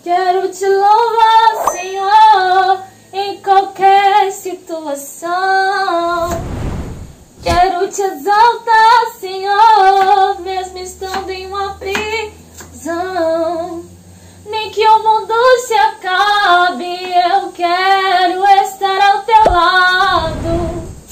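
A woman's high voice singing a wavering, wordless tune with no accompaniment, in phrases with short breaks between them.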